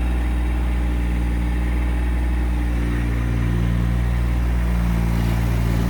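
Massey Ferguson GC1710 subcompact tractor's three-cylinder diesel engine running steadily at idle.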